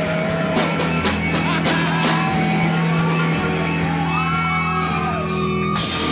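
Live rock band playing loud: electric guitar and bass holding a ringing chord, with drum and cymbal hits in the first couple of seconds and a cymbal crash near the end.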